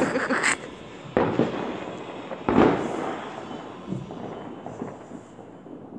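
Fireworks going off: two loud bangs about a second and a half apart, each trailing off in a rolling echo, then a fainter thump.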